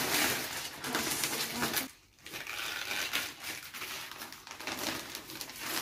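Paper gift wrap and a paper gift bag rustling and crinkling as a present is pulled out and unwrapped, with a short break about two seconds in.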